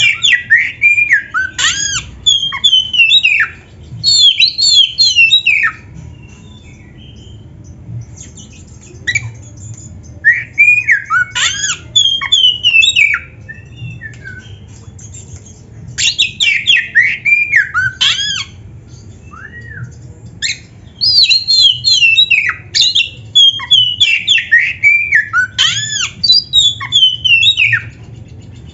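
Oriental magpie-robin (kacer) in full song: loud bursts of rapid, varied whistles and chattering notes, each run lasting a few seconds with short pauses between.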